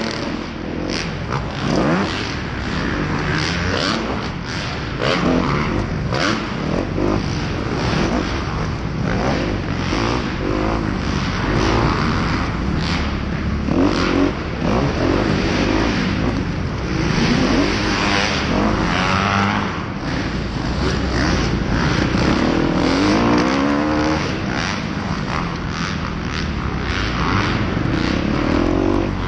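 Kawasaki KX250F's 250 cc four-stroke single-cylinder engine revving up and dropping off again and again as the dirt bike is raced, with pitch climbing through the gears several times. Many short knocks and rattles come from the bike over the rough dirt.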